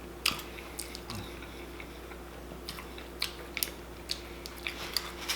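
A person chewing food with the mouth, a scattering of short wet clicks and smacks spread through, thickest in the second half.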